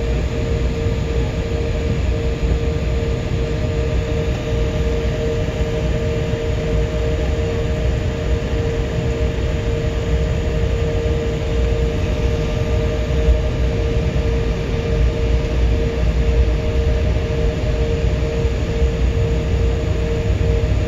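Cabin sound of an Embraer 175 taxiing: its General Electric CF34-8E turbofans running at idle, a steady whine over a low rumble.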